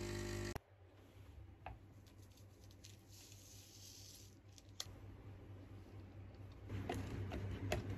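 Capsule coffee machine's pump humming as it dispenses into a paper cup, cutting off sharply about half a second in. After that, faint clicks and rustling as the coffee is stirred and a small creamer cup is peeled open.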